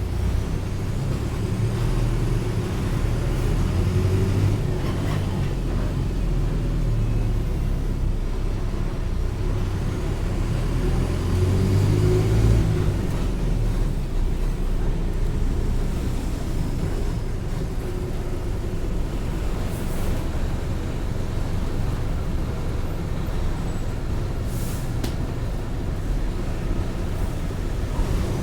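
Mercedes-Benz OF-1722M city bus's diesel engine running under way, its note rising and falling as it drives, with two brief air hisses late on.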